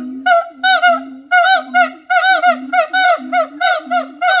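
Siamangs calling: a loud, fast series of hooting notes, each rising and falling in pitch, coming quicker as the call goes on, with a lower held note between them.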